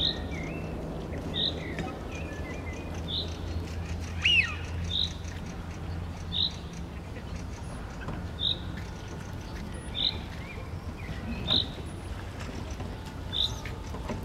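Male Eurasian wigeon calling: one loud whistle that slides down in pitch about four seconds in. Short high calls repeat about every one and a half to two seconds throughout.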